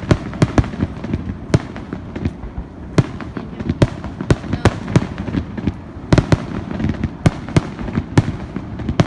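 Fireworks going off: an uneven string of sharp bangs, often two or three a second, over a continuous low rumble.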